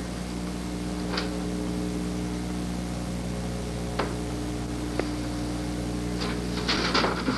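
Steady electrical mains hum with several evenly spaced overtones, with a few faint single clicks and a brief cluster of handling clicks and rustles near the end.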